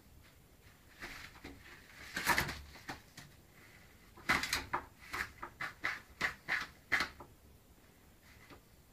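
Mail being pushed through a door's letterbox slot as a cat paws at it: short rustling clacks of paper and the letterbox flap, a burst about two seconds in, then a quick run of about eight between four and seven seconds.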